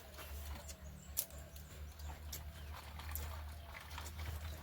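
Close-miked chewing and mouth smacking while eating pork: irregular wet clicks and smacks over a low steady hum.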